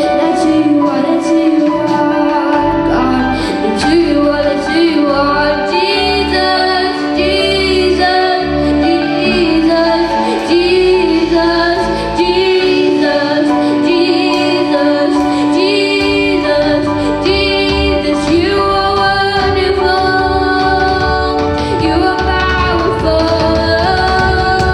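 A worship song: a woman singing a melody over a steady band accompaniment with bass.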